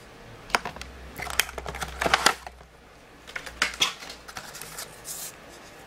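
Clear plastic packaging insert and cardboard box being handled: scattered light clicks, taps and rustles.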